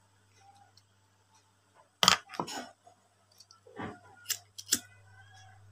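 Handling noise from crochet work and tools: a handful of short clicks and rustles, the loudest about two seconds in, with more between about four and five seconds.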